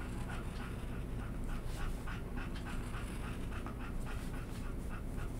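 Pet dog panting quickly and evenly, several breaths a second.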